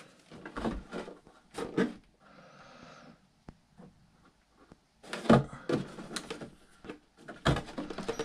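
Handling noises of hands and tools on a plastic RC boat hull: scattered light knocks and taps, a brief soft rubbing hiss about two seconds in, and a cluster of louder knocks about five seconds in.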